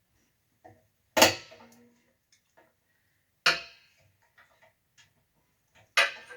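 Three sharp metal clanks about two and a half seconds apart, each ringing briefly, as hand tools knock against metal parts during work on an air compressor's fittings. Faint small clicks come between them.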